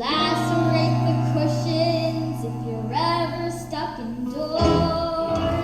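Child singing long held notes over a recorded musical backing track, a number from a children's stage musical; the low steady accompaniment drops out near the end.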